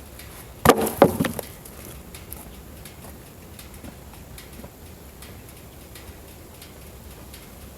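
Two sharp knocks about a third of a second apart, with a short ring, about a second in, as a band-saw blade wedged in a red oak log is worked free. Only faint low background sound follows.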